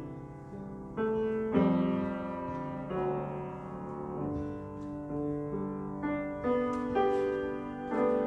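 Slow piano music: single notes and chords struck every second or so and left to ring and fade.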